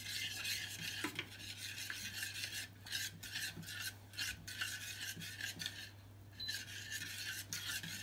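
Metal spoon stirring Turkish coffee in a small stainless-steel saucepan, scraping round the pan in quick repeated strokes, about two to three a second, with a brief pause about three-quarters of the way through. This is the heating mixture of coffee, sugar and water being kept moving so it does not stick before it boils.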